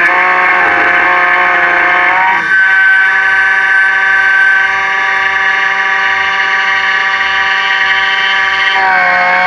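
Miracle A7 Plus key machine's cutter spindle whining steadily as it mills a HU64 Mercedes key blank. The pitch sags at the start, lifts about two and a half seconds in, and sags again near the end, as the cutter bites into the metal.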